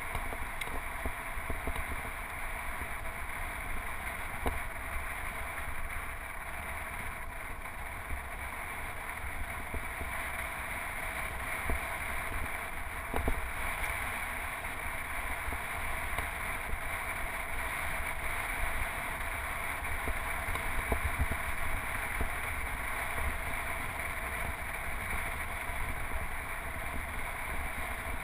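Steady rush of riding noise from a road bike: wind buffeting a handlebar-mounted action camera over the hum of tyres on pavement, with a few faint knocks from bumps in the path.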